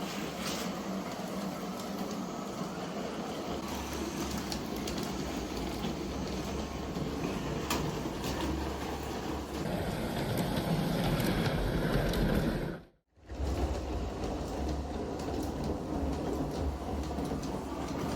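Model freight train with an Eas open wagon running on model railway track: a steady rolling and motor noise that cuts out briefly about thirteen seconds in, then carries on.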